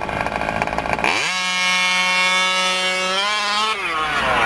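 Losi 5ive-T's small two-stroke gasoline engine running rough at first, then revving up about a second in and held at a steady high-pitched wail for about two and a half seconds before falling in pitch near the end.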